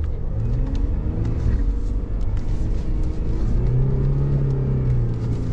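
Ford Ranger pickup's engine revving hard under full throttle as it drives through slippery mud, its pitch rising and falling and strongest about four seconds in.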